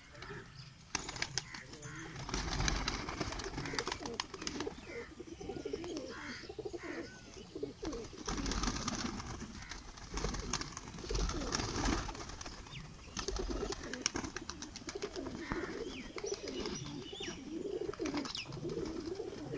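A flock of domestic pigeons cooing continually in low, warbling calls, with bursts of wing flapping as birds leave the loft and flutter about.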